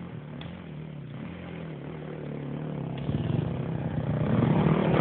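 Dirt bike engine running with its pitch wavering, growing louder from about three seconds in as the bike approaches.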